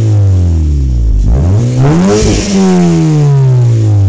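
2012 Honda Civic Si's 2.4-litre four-cylinder engine revved while parked, heard at the exhaust. The revs fall back from a blip, climb sharply in a second rev about a second and a half in, then drop back slowly.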